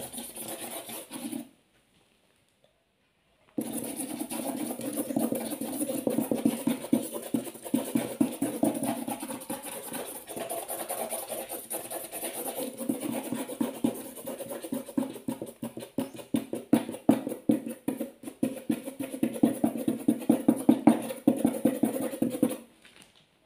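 Fonix felt-tip markers scribbling fast back and forth on paper over a plastic board, a dense run of quick scratchy strokes. It breaks off for about two seconds shortly after the start, then resumes and stops just before the end.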